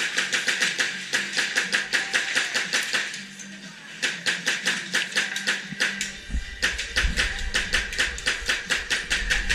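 Airsoft gun firing in long bursts of rapid, evenly spaced sharp clicks, several shots a second, with two short pauses.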